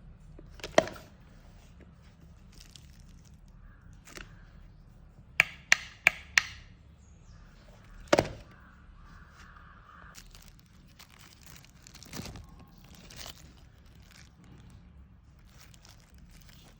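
Handling noise while unboxing a plastic extension board: a sharp snap about a second in, four quick clicks in a row around five to six seconds, another snap around eight seconds, and soft rustling in between.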